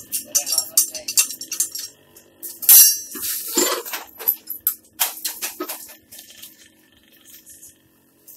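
Hand-cranked cast-iron popcorn cooker rattling and clinking rapidly as its drum is turned. The cranking stops after about two seconds. A loud metallic clank follows, then scattered knocks as the machine is handled, dying away near the end.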